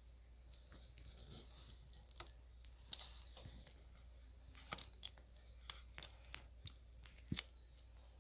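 Sticky slime being stretched and spread by hand, giving scattered small clicks and sticky pops.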